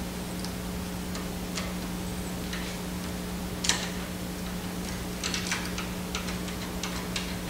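Scattered small clicks and taps of screws and metal parts being handled inside a direct-to-garment printer's frame as the capping station's inner screws are taken out. There is one firmer click about halfway through and a quick run of light clicks near the end, over a steady low hum.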